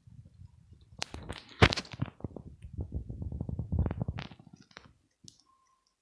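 A domestic cat licking and grooming its fur close to the microphone: a quick run of wet clicking licks that starts about a second in, is loudest soon after, and dies away near the end.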